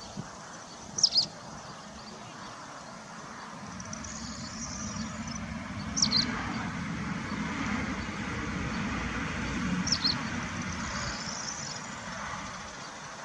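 A vehicle passing, its rumble swelling and then fading, with a short, sharp high call repeated about every four seconds, like a bird's.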